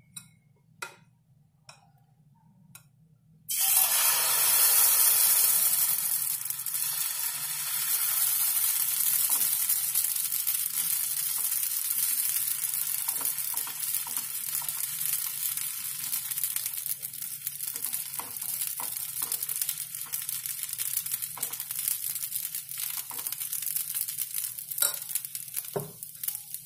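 Chilla batter hitting a hot frying pan greased with ghee: a loud sizzle starts suddenly about three and a half seconds in, then settles into a steady frying sizzle. Light scrapes and taps come from the ladle spreading the batter.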